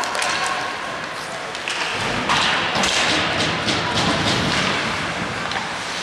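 Game-play impacts: repeated thuds and sharp knocks over a background of crowd chatter, growing louder about two seconds in.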